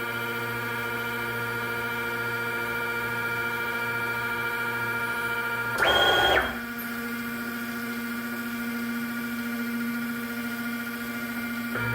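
Stepper motors of a DIY CNC laser engraver running with a steady whine as the machine works. About six seconds in comes a brief, louder, rising burst, typical of a fast move of the gantry.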